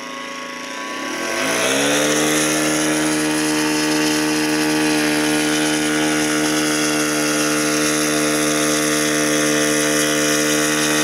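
RC model airplane engine running in flight: it rises in pitch and grows louder about a second in, then holds a steady, even drone.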